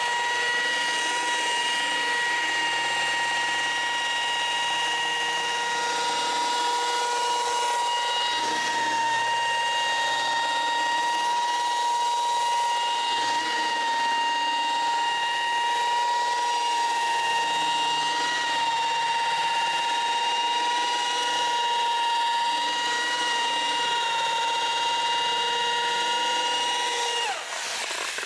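Electric paint polisher running steadily at speed, a constant whine with overtones, as it polishes swirls out of car paint. About a second before the end it is switched off and its pitch falls as it spins down.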